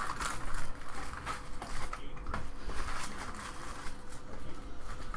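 Trading-card packs and cards being handled: irregular crinkling, rustling and soft clicks of foil wrappers and card stock, over a faint steady hum.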